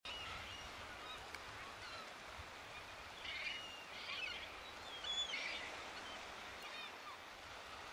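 A feeding flock of gulls calling, with several short gliding calls standing out a few seconds in, over a steady faint hiss.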